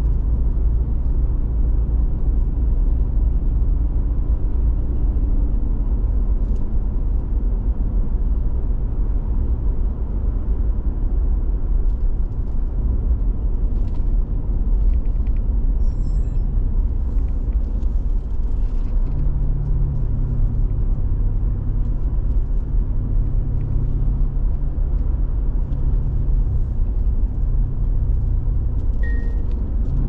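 A car driving at a steady pace, heard from inside the cabin: a continuous low rumble of engine and tyre road noise. The engine note grows a little stronger for a stretch past the middle.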